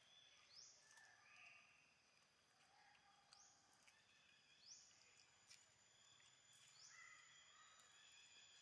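Near silence: faint outdoor ambience with a steady high insect-like hum and distant birds, giving a few short rising chirps.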